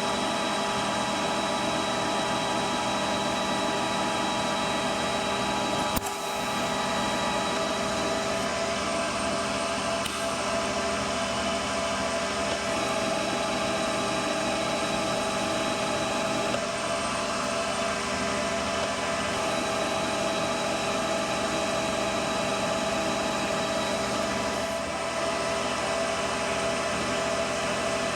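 Metal lathe running steadily while turning down a 4140 steel bar, with a steady whine of gear and motor tones under the cutting noise. There is one short click about six seconds in.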